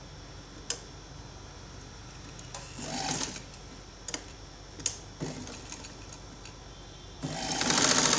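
Radhu sewing machine starting to stitch a seam about seven seconds in, running steadily and loudly once under way. Before it starts there are only a few light clicks.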